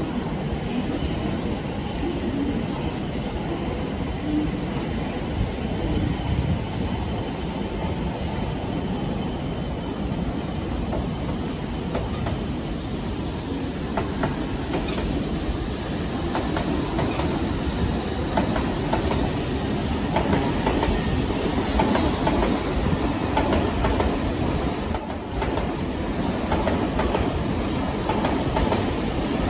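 An N700S Shinkansen bullet train pulls out and runs past at low speed, a steady rumble of wheels on rails that grows louder from about twenty seconds in as the cars pass close.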